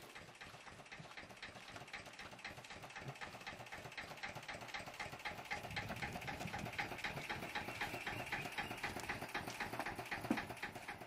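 Boat's diesel engine idling with a fast, regular knock, about five beats a second, growing louder on approach. A single thump near the end.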